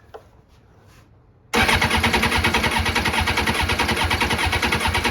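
2002 Suzuki GSX-R 750's electric starter cranking its inline-four engine, a loud, fast, even churn that starts about a second and a half in and runs for about four seconds without the engine catching. The fuel rail is off and the cranking drives the injectors to spray onto paper towels; three of the four fire and the fourth does not.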